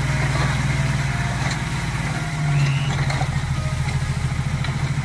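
Dump truck's diesel engine running steadily while its raised tipper bed dumps a load of soil, briefly louder about two and a half seconds in.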